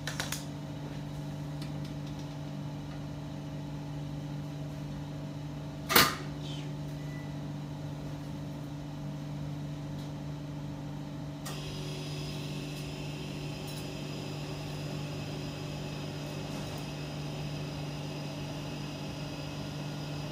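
Steady hum of kitchen machinery, with one sharp metallic clank about six seconds in as the wire harp of a guitar cutter is brought down through a slab of ganache. About halfway through, a second machine starts up, adding a higher steady whine.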